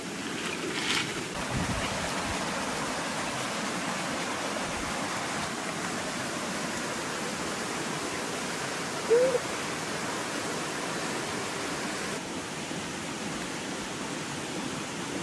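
Steady rushing of a flowing river or stream, with one brief pitched call a little past the middle.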